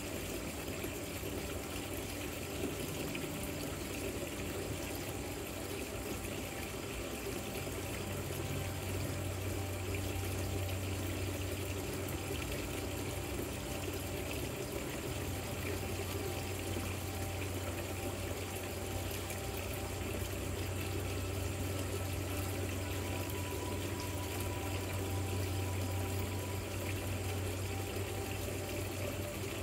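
Water running down a rock fountain, trickling and splashing steadily, with a low steady hum beneath it that grows stronger about eight seconds in.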